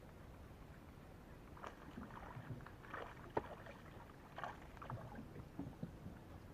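Scattered light knocks, clicks and rustles of gear being handled in a small fishing boat, the sharpest knock about halfway through.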